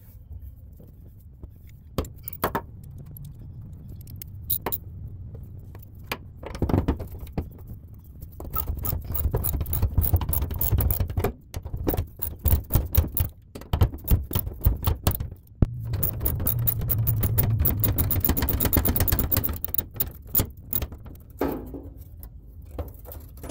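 Hand tools working on a gas tank strap bolt under a car, sped up in a time lapse: rapid runs of metallic clicking from a ratchet, with clinks and clatter in between.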